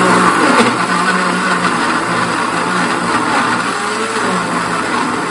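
Countertop blender running, pureeing carrot rounds with eggs and oil: a loud, steady motor hum with churning, its pitch wavering slightly.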